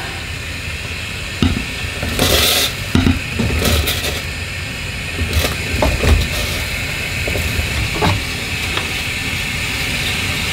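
Diced apple and banana pieces tipped from a bowl into a stainless steel saucepan, landing as irregular soft knocks and thumps, over a steady hiss from the hot pan on the lit gas burner.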